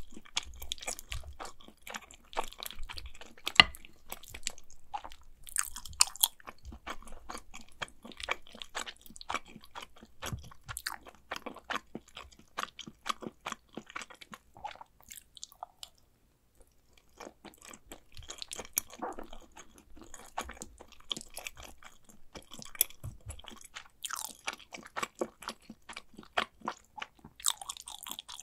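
Close-miked chewing and mouth sounds of someone eating macaroni and cheese: a dense run of irregular wet clicks and smacks, with a brief pause about halfway through.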